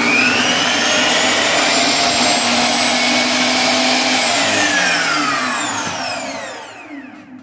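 Craftsman table saw's motor and blade spinning up to speed and running freely with a steady whine, its motor bearings freshly replaced. About four seconds in it is switched off and winds down, the whine falling in pitch and fading.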